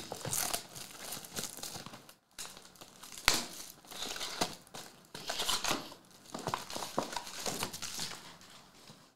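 Plastic wrapping on a sealed box of trading cards crinkling and tearing as it is stripped off and the box is opened, the cards' foil packs rustling. A single sharp snap about three seconds in.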